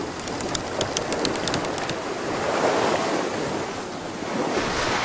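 Sea waves surging and wind, as in a storm at sea, with a quick run of sharp clicks in the first two seconds. The surge swells about halfway through and again near the end.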